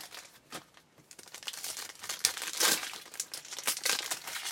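Trading card packaging being torn open and crinkled by hand: irregular rustling and tearing, with a short lull about a second in and the busiest crinkling in the middle.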